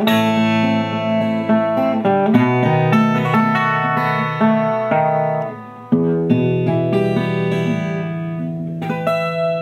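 Instrumental ending of a song with no singing. A run of quick melodic notes dips briefly, then from about six seconds in settles into long held closing chords.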